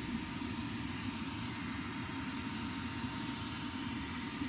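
Steady droning noise of an electric sander turned upside down and used as a bench grinder.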